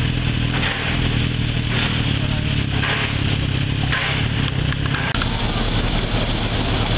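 Steady low engine hum with wind noise on the microphone; about five seconds in it gives way to a rougher, uneven low rumble with wind.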